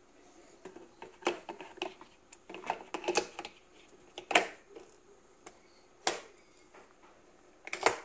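Hard plastic clicks and rattles from an Ambiano single-serve pod coffee maker being loaded. The pod holder is handled and pushed into the brewer with a sharp snap a little over four seconds in, and another cluster of clicks near the end as the lid is pressed shut.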